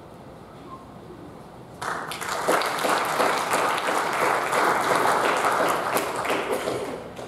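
Audience applauding. The clapping starts suddenly about two seconds in, holds for several seconds, and dies down near the end.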